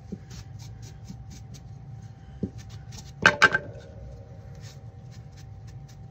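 A baby wipe loaded with wax rubbing along the edge of a painted wooden board in quick, short strokes, about three or four a second. A little past three seconds in there is a sharp clatter of two or three knocks with a brief ring as the board is handled against the table.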